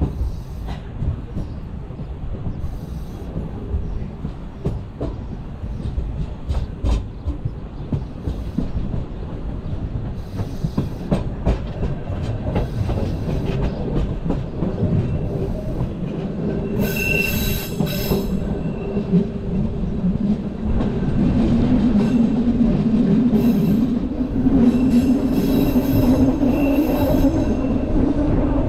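Bernese Oberland Railway narrow-gauge train running through a station yard: a steady rumble with scattered clicks of wheels over rail joints and points. The wheels squeal briefly about two-thirds of the way in and again near the end, and over the last several seconds a low hum grows louder and rises in pitch.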